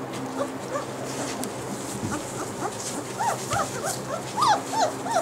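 Bernese Mountain Dog puppies, five to six weeks old, whimpering and yipping in short high squeaks. The squeaks are sparse at first and come thicker and louder in the second half.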